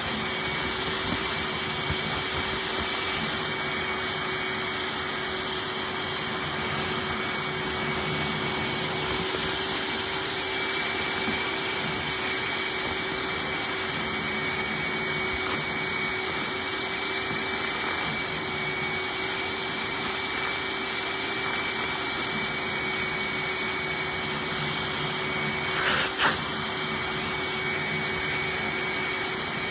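Hoover wet/dry shop vac running steadily on its hose and upholstery tool, sucking dust out of a vacuum cleaner's pre-motor filter: a constant rush of air with a steady motor whine. Two short knocks come close together near the end.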